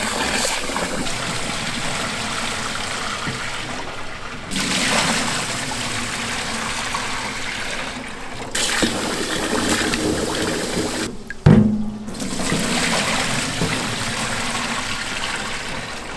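Tap water splashing into a stainless steel pot as grain is swished and washed by hand, then the cloudy rinse water poured off in a stream into a steel sink. One sharp metallic knock about two-thirds of the way through is the loudest sound.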